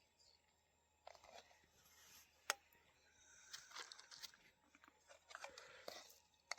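Faint scraping and light clicks of serving utensils as rice is served onto plates, with one sharp click about two and a half seconds in.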